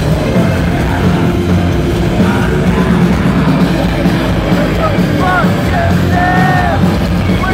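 Industrial metal band playing live, loud and dense, with the singer shouting and singing over it.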